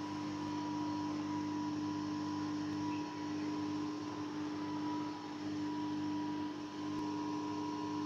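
Dreame D9 Max robot vacuum driving itself back to its charging dock: a steady motor hum with a constant low tone and a fainter, higher whine.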